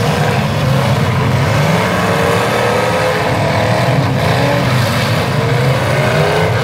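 Several V8 demolition derby cars' engines revving hard at once, their pitches rising and falling over one another above a steady heavy rumble.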